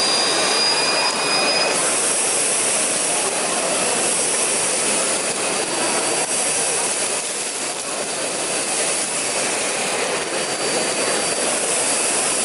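Vacuum cleaner running: a steady rush of air with a high motor whine that drops away about two seconds in.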